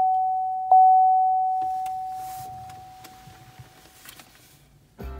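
2014 GMC Sierra's dashboard warning chime sounding with the ignition switched to run: a bell-like ding struck once more about two-thirds of a second in, then ringing out and fading away over the next few seconds.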